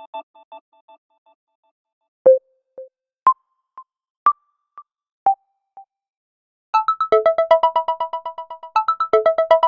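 Electronic ringtones from a Miguel Yukomigel Y60 phone played one after another. The tail of one tone fades out, then four single synth notes sound about a second apart, each followed by a fainter echo. About seven seconds in, a fast, busy synth melody starts.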